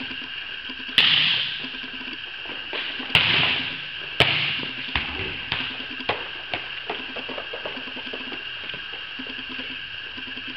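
Volleyball struck hard three times in the first half, each hit sharp and echoing off the metal building, followed by a run of lighter taps, over a steady background hum.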